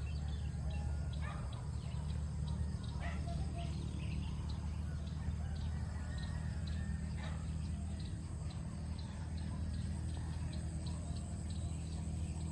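Birds chirping with a few louder calls from farm fowl, over a steady low rumble.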